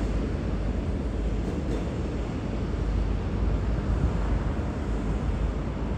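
Steady low rumble of a diesel train, with no horn sounding.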